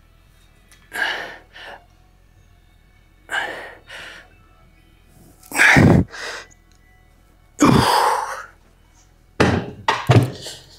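A man breathing out hard once per rep during a set of dumbbell lateral raises, about one breath every two to two and a half seconds, the later ones louder and more strained. Near the end come a few sharp knocks, typical of dumbbells being set down.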